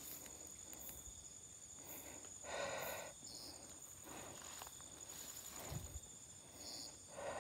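Night insects trilling steadily in a high-pitched continuous tone, with a few faint rustles.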